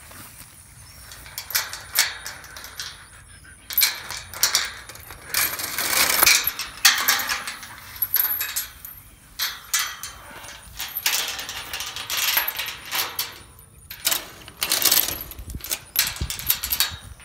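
Metal chain on a steel pipe farm gate clinking and rattling as it is unhooked and refastened by hand, with the swish of footsteps through long grass between, in bursts about a second apart.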